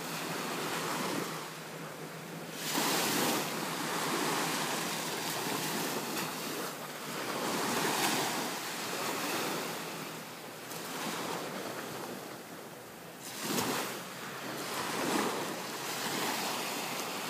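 Ocean surf washing onto a beach, swelling and fading every few seconds as each wave comes in, with some wind on the microphone.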